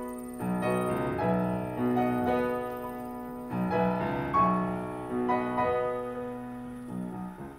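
Solo piano music: sustained notes and chords struck every half second or so.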